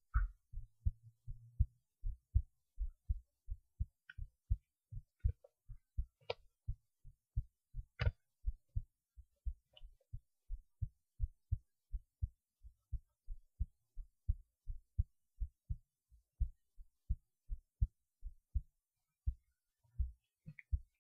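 A person's heartbeat recorded close to the chest: a steady run of short, low thumps, the heart sounds following each other about three times a second. A few faint clicks come in near the middle.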